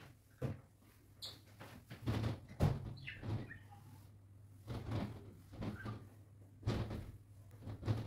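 Irregular short knocks and bumps from cleaning wardrobe doors and handling cleaning things, with a low steady hum underneath.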